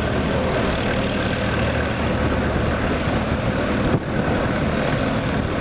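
Tractor engine running steadily as it tows a passenger trailer, heard from the trailer, with a short break about four seconds in.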